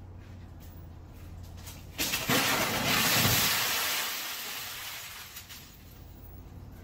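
A sudden loud blast about two seconds in, as something pressurised on a flatbed trailer lets go, followed by a rushing hiss of escaping gas or powder that fades out over the next few seconds. A low steady hum runs underneath before the blast.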